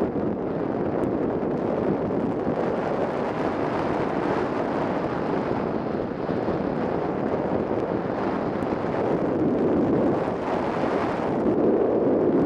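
Steady wind rush of airflow over the onboard camera on a 3 m radio-controlled Ka8b model glider in flight, with no motor heard, growing a little louder near the end.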